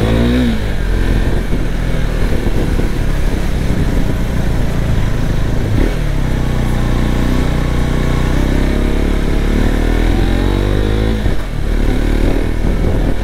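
BMW sport motorcycle's engine running under way over a rough, slippery track, mixed with wind and road noise. Its revs rise and fall with the throttle, climbing again about ten seconds in.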